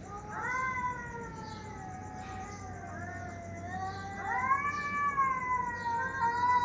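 Domestic cats wailing (caterwauling): a long drawn-out cry, a short one, then another long cry that rises and slowly sinks.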